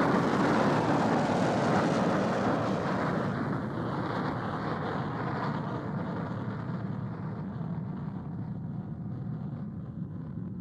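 Rocket-engine sound effect for the Apollo lunar module flying off: a steady rushing rumble that slowly fades and dies away near the end.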